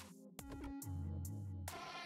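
Electronic outro music: sustained synthesizer chords over a deep bass line with occasional drum hits. The music briefly drops out just after the start, then comes back in.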